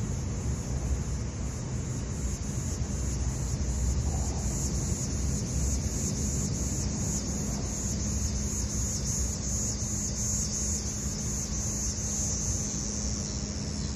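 Outdoor ambience: a steady low rumble with insects chirping high and evenly, about two pulses a second.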